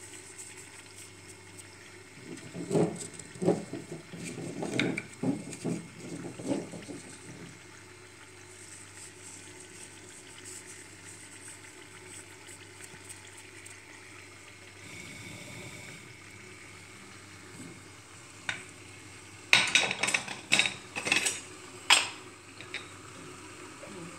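Tuna steaks frying in olive oil in a nonstick pan with a faint, steady sizzle. Two spells of knocking and clattering break in, one from about 3 to 7 seconds in and a sharper one around 20 to 22 seconds in.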